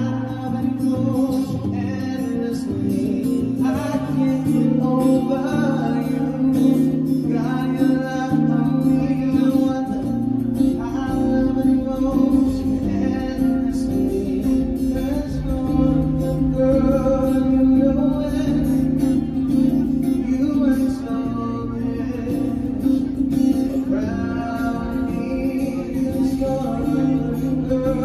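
A man singing a song into a microphone, accompanying himself on an amplified acoustic guitar, with the bass notes changing every couple of seconds.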